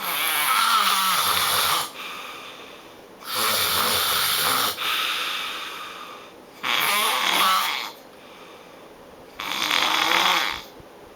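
A person snoring loudly: four long snores, one about every three seconds.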